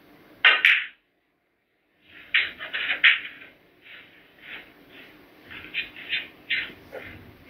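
Snooker shot: the cue tip strikes the cue ball and the cue ball clicks into another ball, two sharp knocks close together about half a second in. From about two seconds in comes a run of softer, uneven knocks and rustles.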